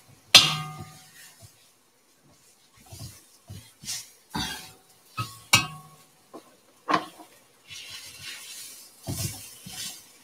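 Spatula clanking and scraping against a cast iron wok while beef is stir-fried: about five sharp, briefly ringing strikes at uneven intervals, with softer knocks between them and faint sizzling near the end.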